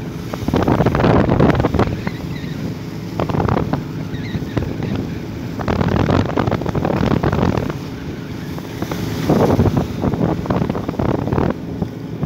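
Sea water rushing and splashing along the hull of a steel work boat under way in choppy sea, with wind buffeting the microphone. The rush swells and eases every couple of seconds, over a low engine hum.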